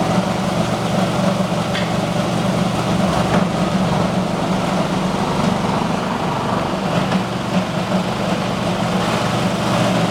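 Plastics grinder machine running steadily with a constant low hum, plus a few faint ticks.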